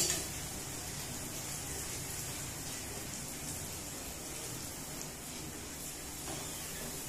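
Bread pieces deep-frying in hot oil in a steel kadai: a steady sizzle, with one short knock at the start.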